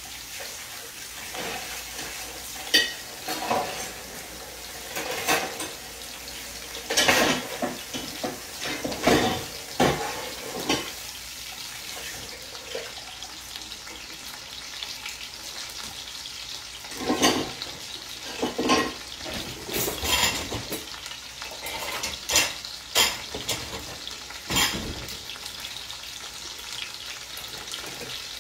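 Beef chuck roast searing in olive oil in a Dutch oven: a steady sizzle, with sharp clicks and knocks now and then.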